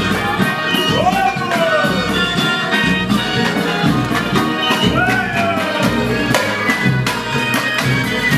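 Carnival street-band music with brass and percussion playing a steady beat. A sliding note rises and falls twice, about four seconds apart.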